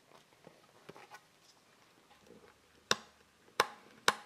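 Small fittings being pressed into a hard black flyscreen by gloved hands: faint taps and rustles, then three sharp clicks in quick succession near the end.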